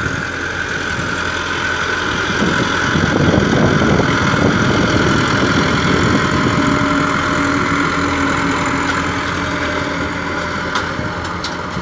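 Massey Ferguson 385 tractor's four-cylinder diesel engine running steadily under load while pulling an 11-tine cultivator through hard soil. It grows louder as the tractor comes close, peaking about four seconds in, then eases off.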